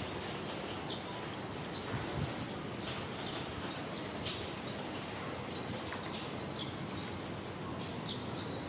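Small birds chirping on and off in short, high, falling notes, over a steady high-pitched whine and a low hiss of background noise.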